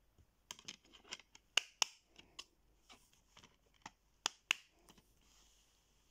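A DVD disc and its plastic case handled: the disc pressed onto the case hub and the case closed, a run of sharp plastic clicks and taps with two louder double clicks, then a brief soft rub.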